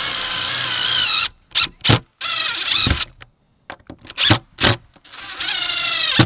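DeWalt 20V cordless impact driver driving screws through a steel hinge into a wooden shutter board. Its motor whines in a long run at the start, then a few short bursts as screws seat, a short pause, and another long run near the end.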